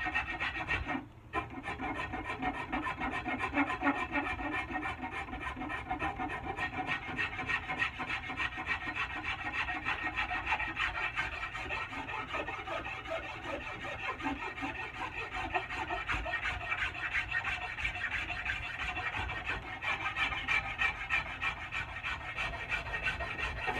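A hand file rasping over the wooden end of an axe handle in quick repeated strokes, rounding off the handle's bulbous palm swell. There is a short break about a second in.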